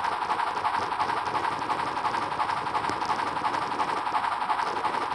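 HO-scale model train running along the track, a steady whirring rolling noise, heard from a camera riding on the train.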